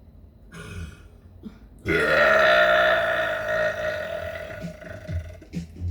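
A person burping: one long, loud burp starting about two seconds in. It rises in pitch at the onset, then holds a steady pitch for about three and a half seconds before fading out.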